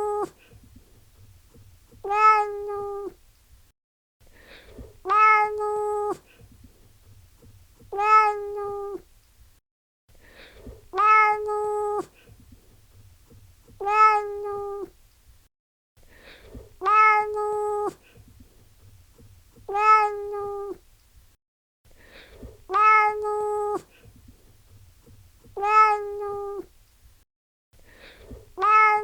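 Domestic cat meowing: the same long meow, a short rise in pitch and then held for about a second, repeated about every three seconds. A faint low hum sits between the meows.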